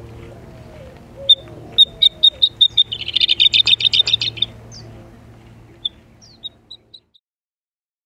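A songbird singing: a run of clear high notes that quickens into a rapid trill, followed by a few scattered single notes.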